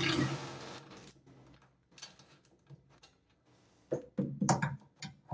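A power driver briefly whirring on a bolt, fading out about a second in, followed by scattered clicks and several sharp knocks of tools on metal near the end while 13 mm bolts under a washing machine are being undone.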